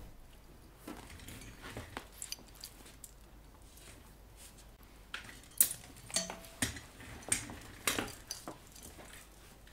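Scattered light clinks and knocks of small hard objects being handled on a workbench, coming more often in the second half.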